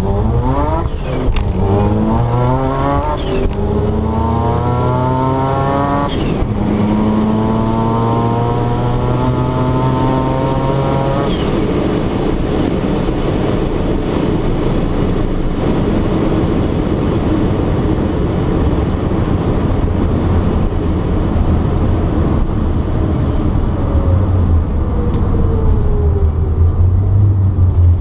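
Turbocharged 13B rotary engine of a 1972 Mazda RX2, heard from inside the cabin at full throttle on a quarter-mile drag run. The pitch climbs in each gear and drops at gear changes about 3 and 6 seconds in, then climbs once more until the throttle is lifted about 11 seconds in. After that the engine runs off the throttle under steady road and wind noise as the car slows.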